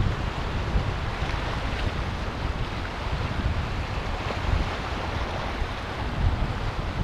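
Mediterranean sea surf washing steadily onto the shore of a small bay, with wind rumbling on the microphone in uneven gusts.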